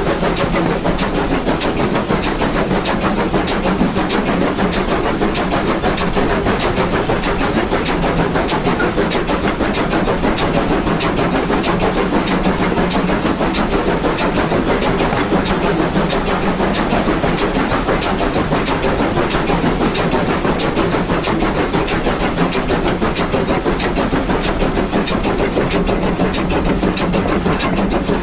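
Baldwin 2-8-2 steam locomotive working at full power on a climb, heard up close among its driving wheels: a quick, even rhythm of sharp beats over a continuous rushing running noise.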